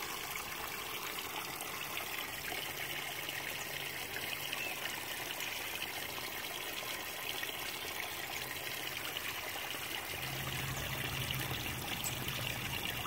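Water trickling steadily into a garden pond, with a faint low hum coming and going.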